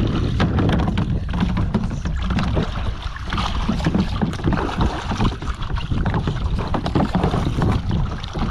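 Water sloshing and splashing around a kayak, with irregular knocks, and wind rumbling on the microphone.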